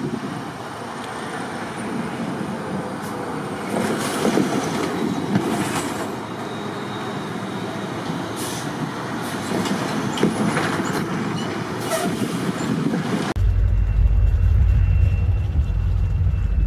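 EMD diesel switching locomotive working freight cars: a steady engine rumble with several short clanks and hisses from the train. About thirteen seconds in it changes suddenly to a louder, deeper rumble as a locomotive approaches.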